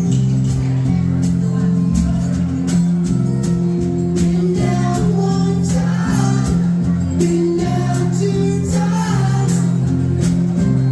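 Live band playing a folk-rock song: picked guitar over steady bass notes, with a regular percussion tick, and a voice singing from about four seconds in.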